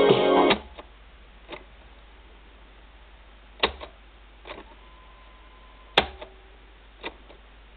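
Music playing back on a Superscope C-204 portable cassette recorder cuts off about half a second in. What follows is a quiet stretch of hiss and low hum, broken by several sharp mechanical clicks, the loudest about six seconds in.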